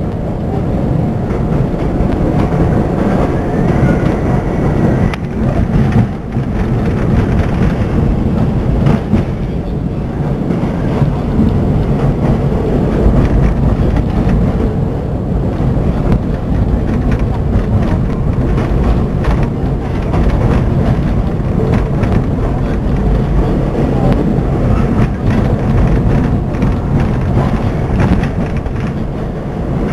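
New York City subway train running on the track: a steady, loud rumble with a constant rattle and clicking of wheels over the rails.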